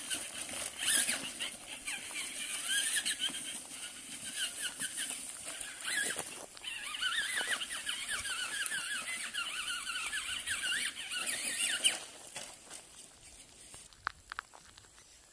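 Traxxas Rustler XL-5 RC buggy's brushed electric motor and gears whining in quick rising and falling glides as the throttle is worked, over a rough rustling noise. The whine is densest in the middle and stops about twelve seconds in.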